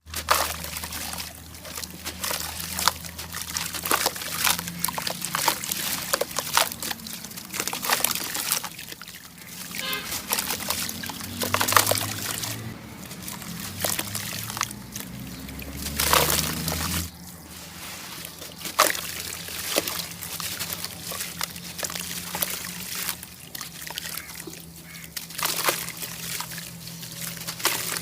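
Chunks of sand cement crumbling in water: many crunchy crackles and clicks mixed with pouring and sloshing water.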